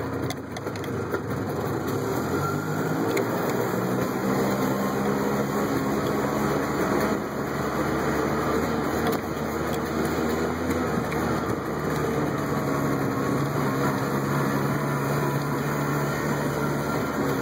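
A motor vehicle's engine running steadily, its pitch shifting slightly around two-thirds of the way through.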